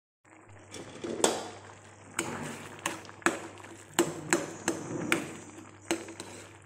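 Metal spoon clinking and scraping against a metal kadai while stirring a thick potato and soybean curry: about a dozen sharp, irregular clinks, starting about a second in.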